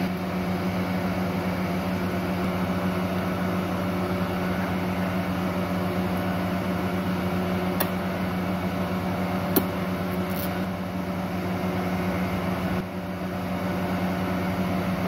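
A steady, even mechanical hum with a fixed buzzing pitch, like a running motor or appliance. A few faint clicks come about eight and ten seconds in.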